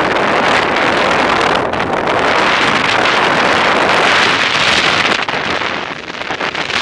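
Extreme wind blasting across the microphone in a blizzard: a loud, steady rush of noise that eases a little and wavers near the end.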